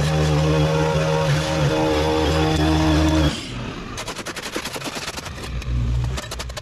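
A two-stroke gas string trimmer cutting a sod edge at full throttle, held steady, then let off to idle about three seconds in. A rapid run of sharp ticks follows, then a brief rev near the end.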